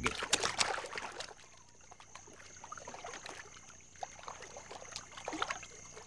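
Crackling rustle of dry ground litter as an owl pounces on prey with its talons. It is sharpest in the first second or so, then dies down to faint scattered crackles.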